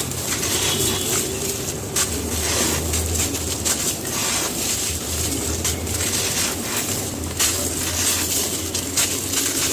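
Gritty cement being crumbled, a dense, continuous run of small crunches and crackles.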